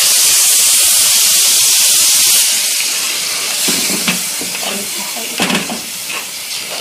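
Hot water poured into a pot of rice and lentils toasted in ghee and oil, hissing loudly as it hits the hot fat. The hiss stops about two and a half seconds in, then a spoon stirs and scrapes in the pot.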